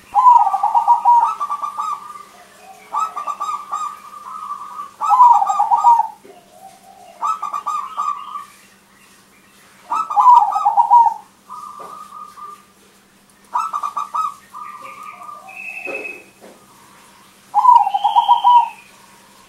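Crossbred zebra dove (perkutut crossing) singing its rolling, staccato coo, about eight loud phrases of roughly a second each with short pauses between.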